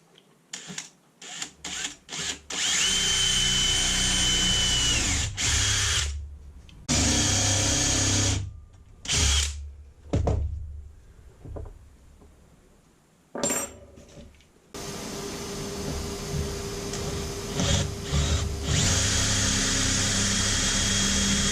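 Electric drill boring holes into a wooden workbench top in a series of bursts: a few short trigger pulls, then runs of a few seconds, and one long continuous run through the last third.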